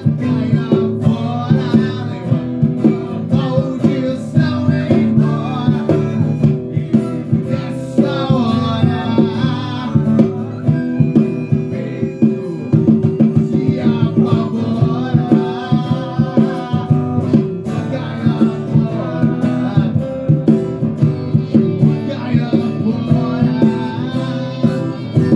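Band music: guitars playing over a steady beat, with a wavering melodic line above.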